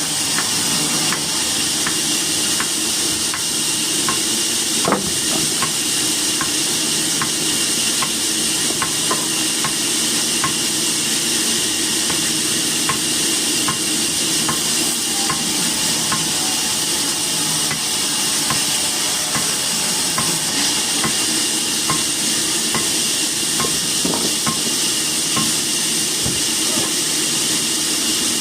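Sawmill machinery running with a steady hiss and a faint tick about twice a second, with a single sharper knock about five seconds in.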